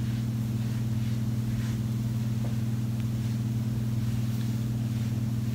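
Steady low electrical hum at an even pitch and level.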